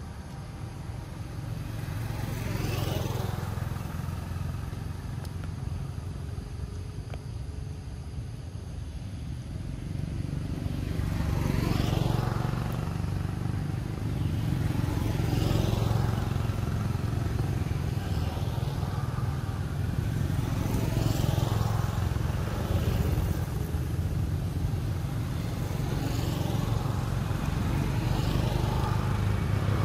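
Road traffic: motorbikes and other vehicles passing one after another, each swelling up and fading away, over a steady low rumble.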